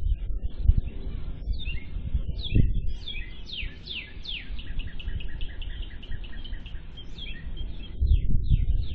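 A bird singing: a string of quick downward-sliding chirps, then a fast run of evenly repeated notes that stops near the end. Underneath is a steady low rumble with a few dull thumps.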